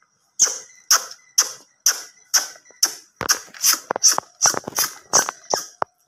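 Indian ringneck parrot giving a run of short, sharp squawks, about two a second at first and coming faster in the second half.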